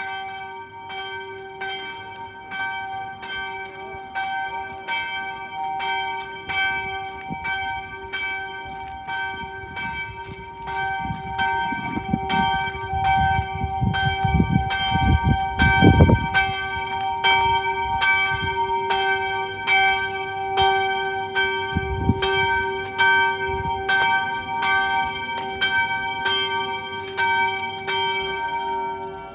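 Church bells ringing, struck in a steady, even run of about one and a half strokes a second, each note ringing on under the next. A low rumbling noise comes in around the middle and is loudest just past halfway.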